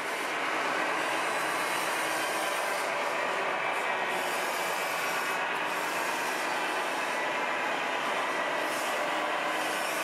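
Radio-controlled scale construction models working, a tipper truck and a crawler excavator: a steady whirring mechanical noise from their small electric drives and gearing, with no single knock or impact standing out.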